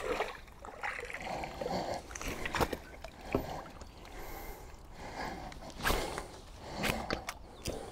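Water splashing and streaming off a landing net as a netted carp is lifted out of the lake, with irregular knocks and clicks from the net and pole being handled.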